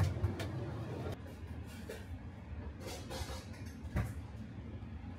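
Low steady background hum of a restaurant kitchen, with a sharp click right at the start, a short hiss around three seconds in and a lighter knock about four seconds in.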